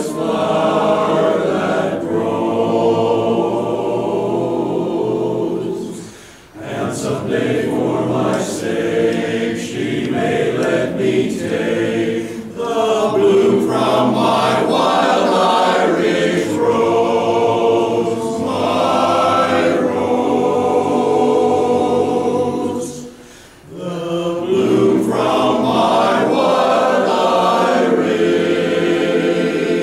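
Barbershop chorus singing a cappella in close four-part harmony, with two short breaks between phrases.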